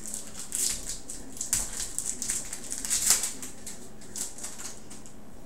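Plastic wrapper of a trading card pack crinkling and crackling as it is torn open and handled, loudest about three seconds in.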